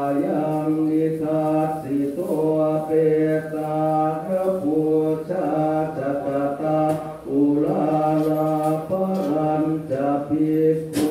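Buddhist monks chanting in Pali together: many low male voices in a steady, drawn-out recitation, holding each note before stepping to the next. A brief sharp click comes near the end.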